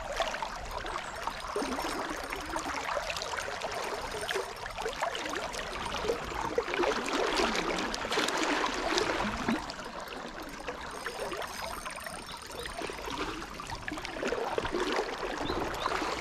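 Flowing river water: a steady rush and gurgle of current close to the microphone, swelling in the middle and easing for a few seconds after.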